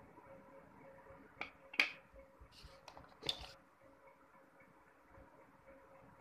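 Wet slate pencil bar knocking and splashing in a steel pot of water: a handful of short clicks and small splashes, the loudest about two seconds in and another just after three seconds, over a faint steady hum.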